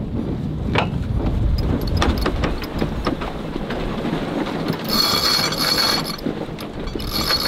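Sailboat's sheet winch clicking as the headsail sheet is hauled in through it during a tack, with two spells of fast ratcheting about five and seven seconds in, over a low rumble of wind.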